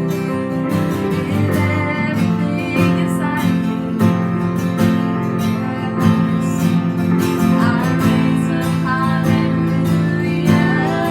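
Worship music from a band, led by a strummed acoustic guitar, playing steadily without a pause.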